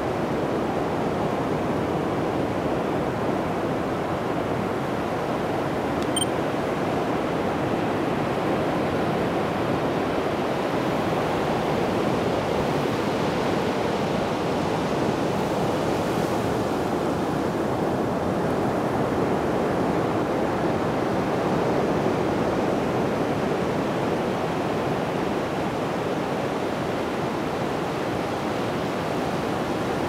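Ocean surf breaking and washing up a sandy beach: a steady, unbroken rush of waves.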